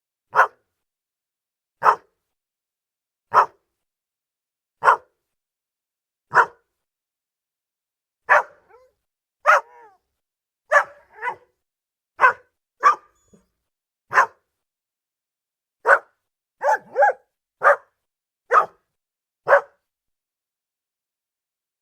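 Border Collie barking, single barks with silence between. The first five come evenly, about one every second and a half. From about eight seconds in they come quicker and more irregular, some in pairs, and they stop a couple of seconds before the end.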